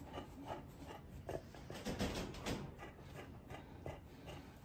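Chow Chow panting softly in an even rhythm, about three breaths a second, with a brief rustle of a hand rubbing its fur about two seconds in.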